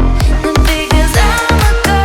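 Background music in an electronic dance-pop style, with a steady bass drum beat about twice a second and a gliding melodic line above it.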